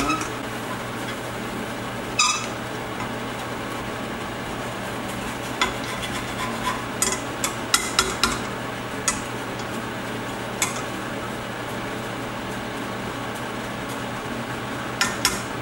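A spatula stirring and scraping egg and rice around a stainless steel frying pan, with scattered sharp taps against the pan, several of them around the middle and near the end, over a steady low hum.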